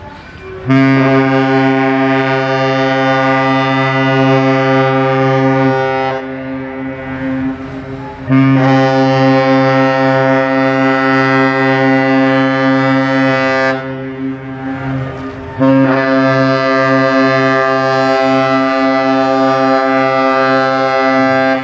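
Cruise ship AIDAprima's horn sounding three long, steady blasts, each about five seconds, with short pauses between them.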